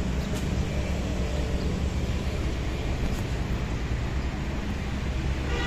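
RC model Cessna 182 airplane flying, its motor and propeller droning steadily in the distance under a heavy rumble of wind on the microphone.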